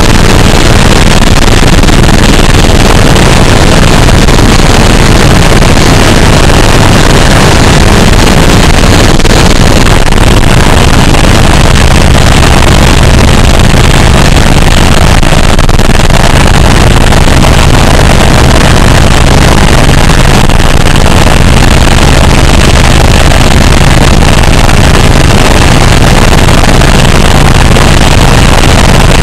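Helicopter running, a loud steady mix of engine and rotor noise with a low hum underneath.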